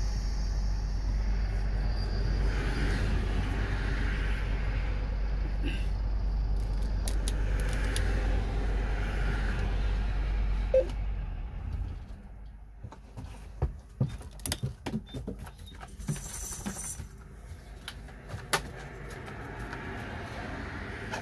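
A parked vehicle's engine idling with a steady low rumble, heard from inside the cab, while traffic swishes past on the road alongside. About eleven seconds in the engine stops, and a run of sharp clicks and small rattles follows.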